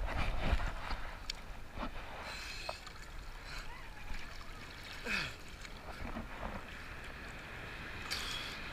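Sea water sloshing and splashing around a swimmer, heard close against an action camera held at water level as small waves wash over it. Louder at first, with brief splashes about two seconds in and near the end.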